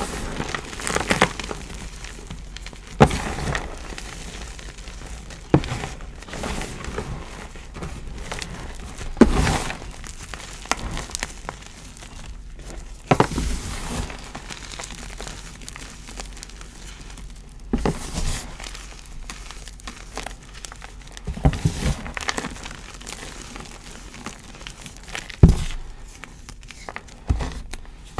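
Dyed gym chalk squeezed and crushed by hand in a tray: steady crumbly, powdery crunching, with a sharp crunch every few seconds as chunks break.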